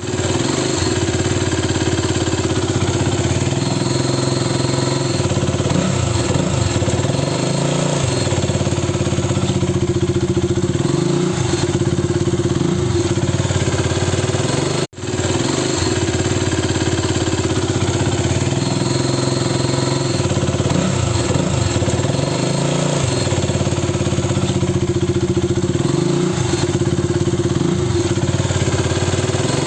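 KTM Duke 200's single-cylinder engine running steadily, with a noise that the owner takes for a problem and cannot identify. The sound cuts out for a moment about halfway through.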